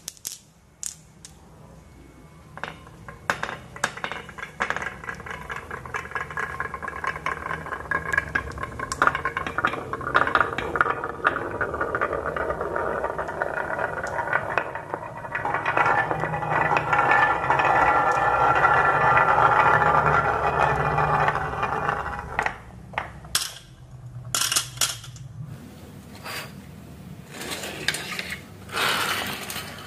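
Glass marbles rolling and clattering down carved wooden marble-run tracks: a few clicks as they are dropped in, then a continuous rolling rattle that builds and fades, and a few more separate clicks near the end.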